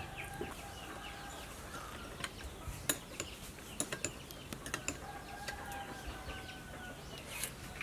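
A metal spoon clinks sharply against a glass bowl several times while stirring a lime-garlic dipping sauce. A rooster gives two long, faint calls in the background.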